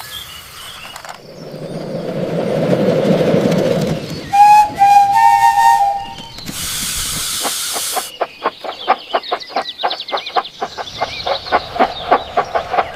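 Steam train sounds: a rumble that builds up, a two-tone whistle blast about four seconds in, a burst of steam hiss, then steady chuffing at about five beats a second.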